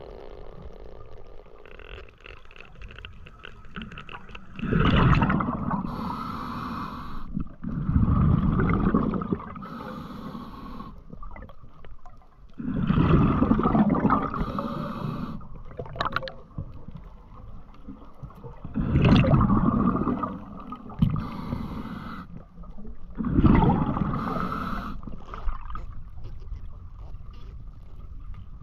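A diver breathing through dive gear: five loud, rough breaths a few seconds apart, with water gurgling between them.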